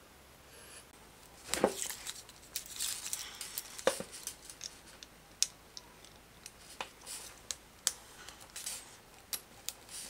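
Handling noises of an RJ45 Ethernet plug and a plastic-handled crimping tool: scattered sharp clicks and short scratchy rustles, beginning about a second and a half in, as the plug is worked onto the cable and fitted into the crimping tool's die.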